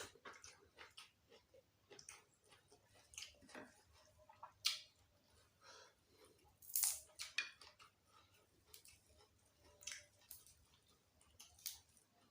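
Close-up mukbang eating: a person chewing a mouthful of gulai kikil and raw vegetables, with irregular wet smacks and crunches. The loudest crunches come about 4.5 and 7 seconds in.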